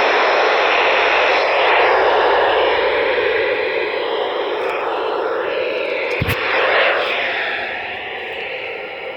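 Weather radio receiver putting out steady static hiss, with a faint broadcast voice buried underneath; a sharp click about six seconds in.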